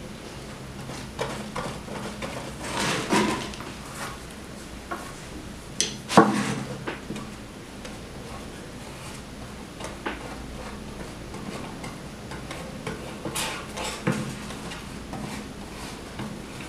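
A brush spreading white glue on an MDF box, with crumpled kraft paper rustling as the box is handled. A few sharp knocks, the loudest about six seconds in.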